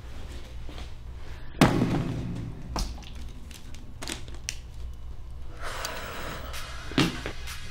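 A loud thud about a second and a half in, then a few light knocks and clicks, and a second, smaller thud near the end, over a steady low hum.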